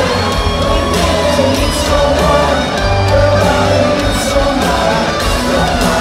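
A rock band playing live at full volume, with singing and electric guitar over bass and drums, heard from within the crowd.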